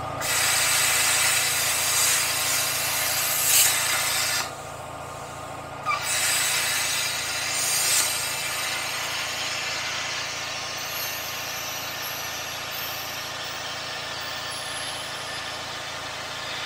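Thermal Dynamics/ESAB Cutmaster 40 plasma cutter's arc hissing steadily as it cuts metal along a straight-edge guide. The arc stops for about a second and a half about four seconds in, then restarts with a click and cuts on.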